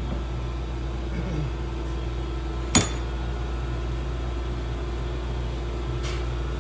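Steady low background hum, with a single sharp click a little under three seconds in.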